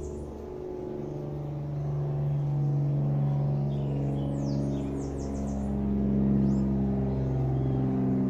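Background music of slow, sustained low tones that shift from chord to chord. A bird chirps a few times over it about halfway through.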